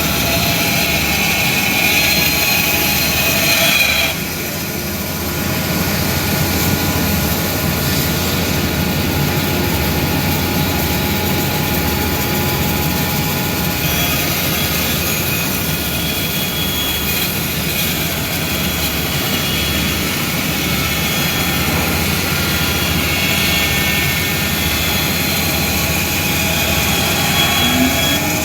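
CNC jigsaw (scroll-saw) machine running: a loud, steady mechanical whir with a faint hum, dipping briefly about four seconds in.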